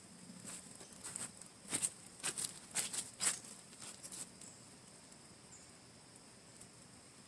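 Irregular sharp crackles and pops from molten antimony in a ceramic crucible heated by a Meker burner, dying away after about four seconds. They come from the melt bubbling, which may be the metal boiling or trapped gases escaping.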